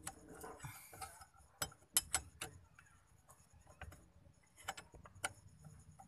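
Scattered sharp metallic clicks and taps of a box-end wrench against a disc brake caliper as it is fitted onto the bleeder screw, the loudest about two seconds in.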